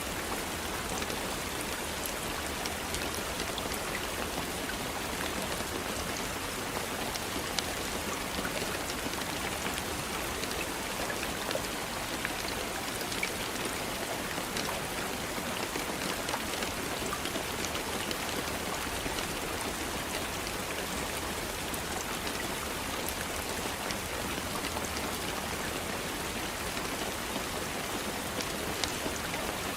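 Steady rain falling, a dense even hiss with scattered individual drops pattering on a surface.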